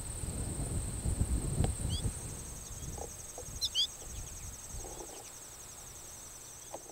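Outdoor field ambience: a steady high insect trill, joined about two seconds in by a second, pulsing trill. A few short bird chirps come around two and three and a half seconds in, over a low rumble that fades away.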